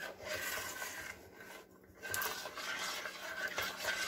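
A spoon stirring thick date candy in a stainless steel pot, scraping and rubbing against the pot in repeated strokes, with a short pause a little past a second in.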